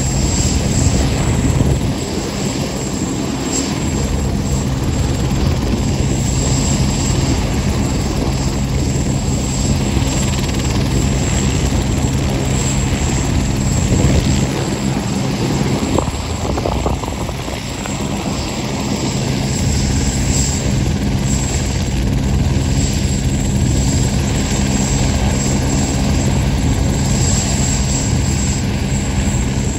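A steady engine drone, loud and unbroken.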